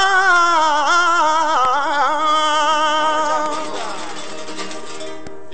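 Gitano flamenco-style song: a man sings one long, wavering melismatic phrase, his voice growing weaker about four seconds in, with a brief break just before the next line begins.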